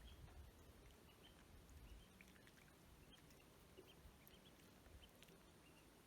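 Faint, scattered high peeps of ducklings over a low background rumble.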